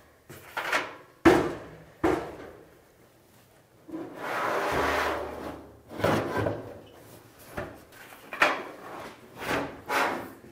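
Metal dryer drum being worked out of the dryer cabinet: a run of knocks and clunks, with a scraping rub of about two seconds starting some four seconds in.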